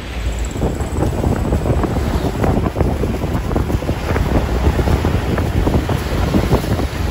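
Wind buffeting the microphone in gusts, over the low rumble of an Isuzu Elf light truck and its tyres as it drives along.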